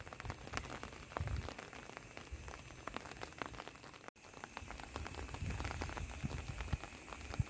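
Rain falling, a dense irregular patter of drops.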